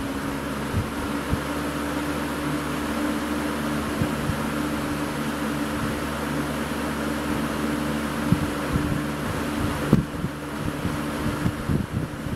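A 1989-90 Lasko 20-inch box fan running steadily, its motor humming under the rush of air from the blades, with a couple of soft thumps late on. The owner describes the motor as pretty worn out and underpowered.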